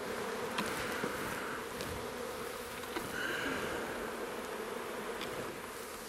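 Honey bees buzzing around an opened hive: a steady hum of many bees, with a brief higher buzz about three seconds in and a few faint knocks.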